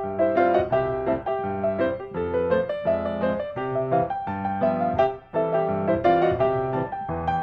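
Background piano music: a melody played in quick successive notes over lower chords.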